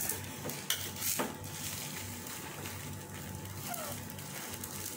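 Dosa frying in a nonstick frying pan, a faint steady sizzle, with a few light taps in the first second or so as the folded pathiri is handled.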